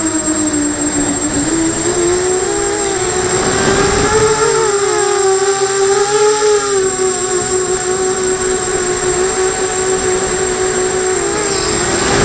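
FPV250 quadcopter's brushless motors and propellers buzzing steadily, their pitch drifting up and down as the throttle changes, with a thin high whine above.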